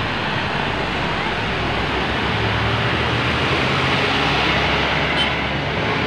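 Heavy vehicles passing close by on a busy road: steady road noise, with a low engine drone that strengthens about two seconds in.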